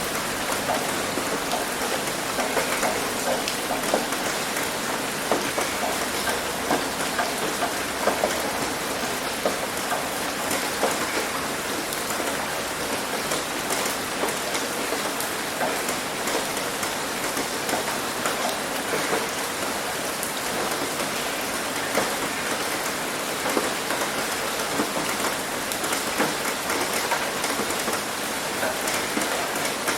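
Steady rain falling on a roof, a continuous hiss dotted with many individual drop impacts.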